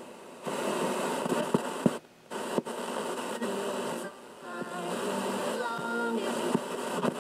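Single-tube superregenerative FM receiver playing through a speaker as it is tuned across the band: a steady rushing hiss that drops out briefly twice, with faint snatches of a station's voice or music coming through past the middle. The circuit is squirrely and unstable and tunes fast.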